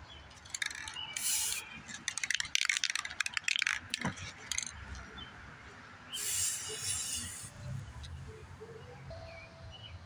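Aerosol can of gold metallic spray paint spraying in hissing spurts: a few short bursts in the first four seconds, then one longer hiss of over a second a little after six seconds in.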